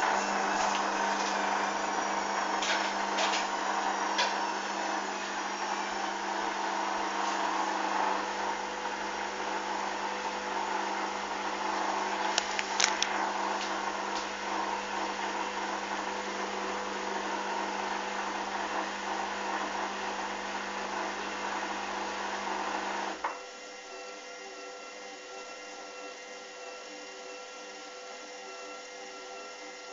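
Hoover washing machine running: a steady hum and motor whine with a few clicks. About 23 seconds in, a click, then the hum cuts out and the machine carries on with a quieter whine.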